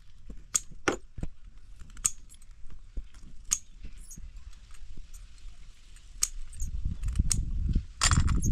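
Scattered sharp clinks and knocks, irregular, like small hard objects striking each other, with a low rumbling noise coming in about six and a half seconds in.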